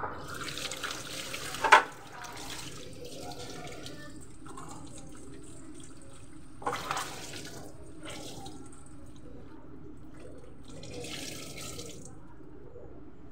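Water running from a tap into a sink as things are rinsed by hand under it, with a sharp knock about two seconds in.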